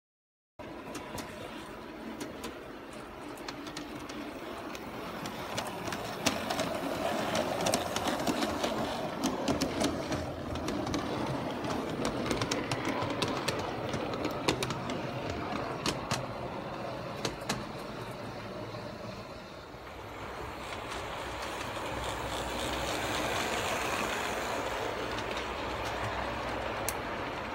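G-scale model freight cars rolling along garden-railway track, the wheels running on the rails with many irregular sharp clicks. The sound swells as the cars come close, fades briefly about two-thirds of the way through, then grows again.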